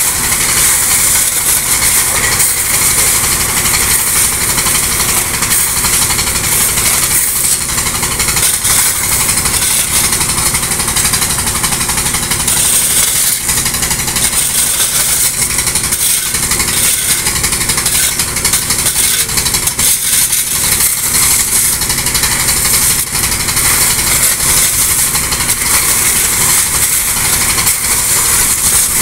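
A pump engine running steadily under a constant rush of gravel and water pouring from a pipe onto a gravel pile, with shovels scraping through the stones.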